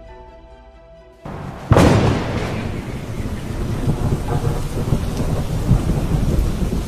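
Soft background music fades, then about a second in heavy rain comes in abruptly. A sharp thunderclap breaks just after, and steady rain with low thunder rumble carries on.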